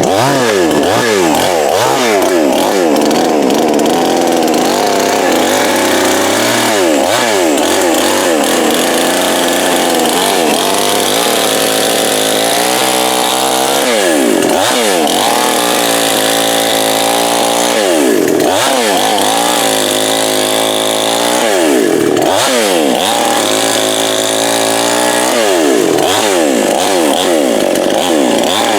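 Coocheer 58cc two-stroke chainsaw running at high revs while cutting wood. The engine pitch repeatedly sags and climbs back as the chain loads up in the cut and frees again.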